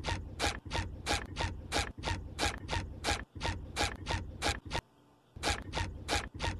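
A rapid run of short, sharp scraping clicks, about four a second, that breaks off for half a second about five seconds in and then starts again.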